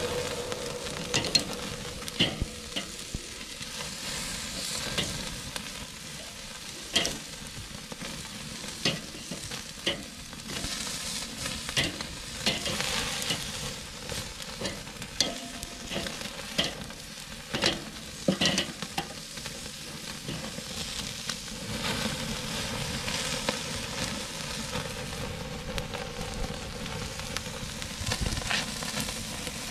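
Goat T-bone steaks searing on a Weber kettle grill: a steady sizzle broken by irregular sharp pops and crackles. This is the final quick sear after the meat was brought up to 120.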